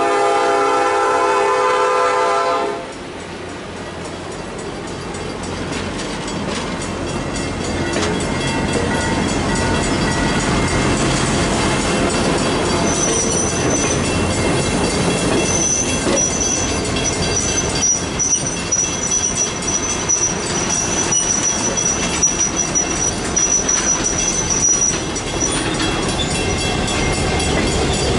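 A diesel locomotive horn sounds and cuts off about three seconds in; then passenger coaches roll past, their wheels clicking over the rail joints. From about the middle until near the end a high, steady wheel squeal rides over the rumble.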